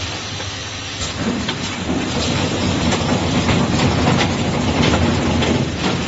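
Automatic network patch cord assembly line running: a steady mechanical hum with many irregular clicks and clacks from its pneumatic stations, and short hisses of air. The hum grows a little louder about two seconds in.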